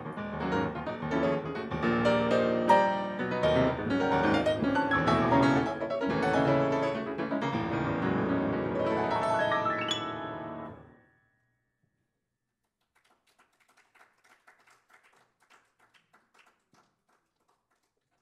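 Solo grand piano playing a dense, loud classical passage with a fast upward run, ending abruptly about eleven seconds in. After a short silence comes faint, scattered clapping.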